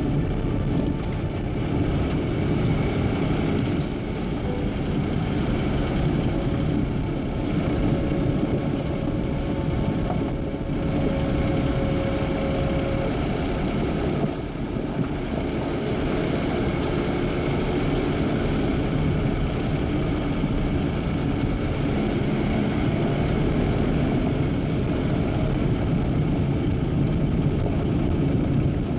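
Jeep driving at a steady pace: continuous engine and road noise, strongest in the low range.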